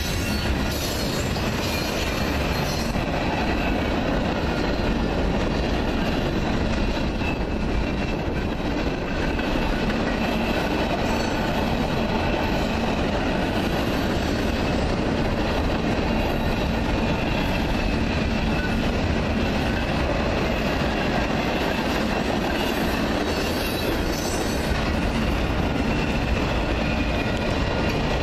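A long mixed freight train of covered hoppers, tank cars and boxcars rolling past, the steel wheels on the rails making a steady, unbroken rumble and clatter.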